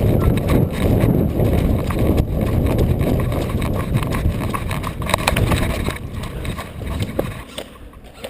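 Footfalls and gear rustling of a player moving quickly on foot, with wind buffeting the microphone; the noise dies down about seven seconds in.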